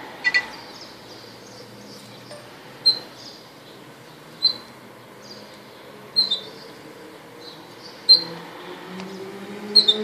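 Red factor canary giving short, sharp single chirps, about six of them a second or two apart, over a steady faint background hum. Near the end a vehicle engine rises in pitch.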